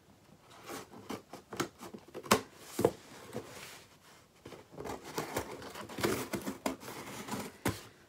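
Scissors cutting the packing tape on a cardboard box and the box flaps being worked open: scattered sharp clicks and knocks, with a longer stretch of rustling cardboard and tape in the second half.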